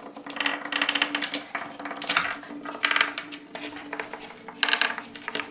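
Small vibrating robot bug toys buzzing and rattling across a wooden tabletop, heard as several bursts of rapid clicking.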